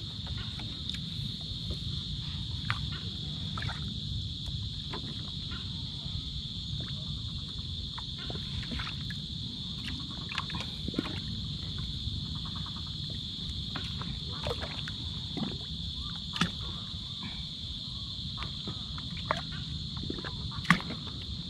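A steady chorus of insects, a continuous high buzz, with scattered clicks and knocks over it; the loudest knock comes near the end.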